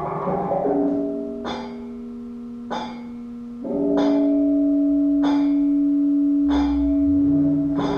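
Electronic music from a sound installation: held pure tones that shift to a new chord twice and grow louder about halfway through. A sharp click comes about every 1.2 seconds, six in all.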